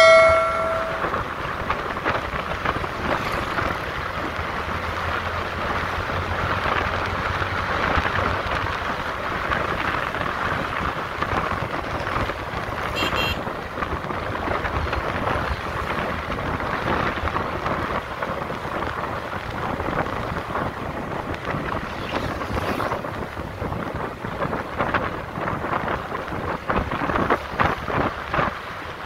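Steady rush of wind buffeting the microphone over road and engine noise from a moving vehicle. A brief ringing tone fades out just under a second in.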